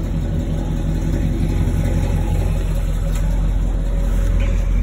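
1970 Chevrolet Impala's engine idling with a steady low rumble.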